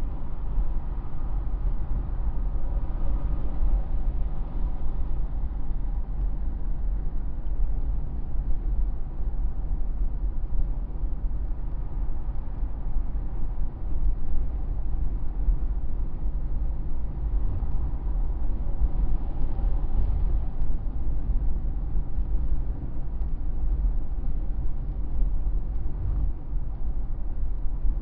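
Steady engine, tyre and wind noise of a vehicle cruising at freeway speed, mostly a low rumble.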